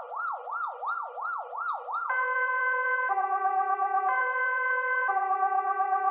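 Swedish police siren in a fast yelp, its pitch sweeping up and down about three times a second. About two seconds in it switches to a two-tone pattern, alternating between a higher and a lower note about once a second.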